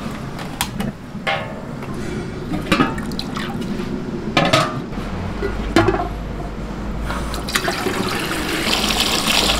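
Water from a hose pouring into large metal cooking pots, the splashing growing fuller near the end. Several sharp clanks come from the metal pots and lids being handled.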